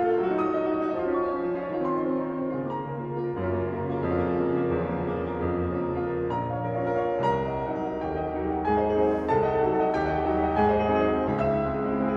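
Classical piano music: a solo piano playing full chords over a sustained bass line.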